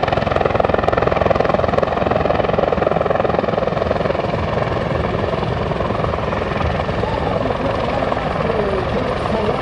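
RCAF CH-146 Griffon helicopter flying, with a steady rapid rotor chop under a constant turbine whine.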